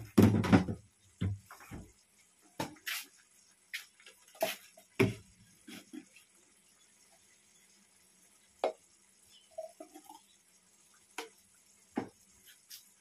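Sardine and vegetable sauce simmering in a frying pan on a gas burner, bubbles popping in irregular single pops and clicks, with a heavier knock right at the start.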